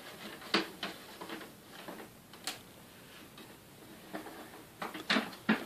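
Scattered light clicks and taps from handling the plastic dust-bag compartment of a Panasonic canister vacuum while the folded dust bag is put back in. The loudest come close together near the end.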